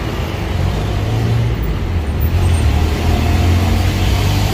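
Motor vehicle engine running with a low steady rumble, growing a little louder from about a second in.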